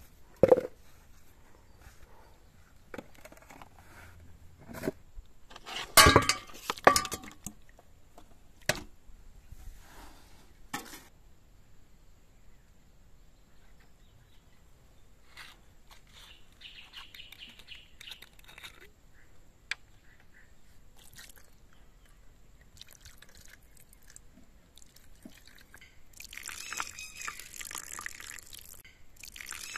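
Scattered knocks and clatter, loudest about six seconds in, then in the last few seconds red wine splashing steadily as it is poured from a tipped glass bottle.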